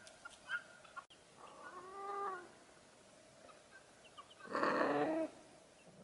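Helmeted guineafowl calling: a short sharp note at the start, a drawn-out pitched call that rises and falls about two seconds in, and a louder, harsher call near the end.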